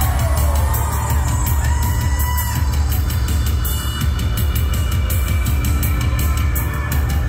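Post-punk/new wave band playing live through a concert PA: a heavy bass line under a steady drum beat.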